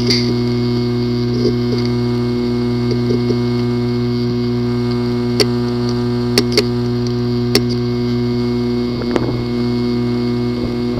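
Failing hard disk drive running with a steady hum, its heads giving a few sharp, scattered clicks about halfway through. The clicking is the symptom of a physically damaged disk assembly.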